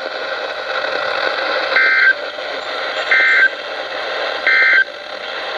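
Three short Emergency Alert System (SAME) data bursts from a NOAA Weather Radio broadcast, a little over a second apart, over steady radio hiss. Coming right after the warning text, they are the end-of-message code that closes the flood warning.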